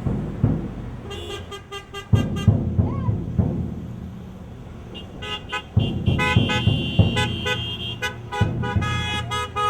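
Passing cars honking their horns over traffic noise, in reply to roadside honk-for-support signs. A quick run of short toots comes about a second in; from about halfway there are more rapid beeps from several horns, with one horn held for a second or two.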